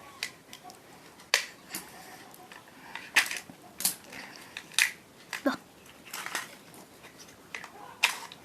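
Wrapper of a toy chocolate egg being crinkled and torn open by hand: a string of sharp, irregular crackles.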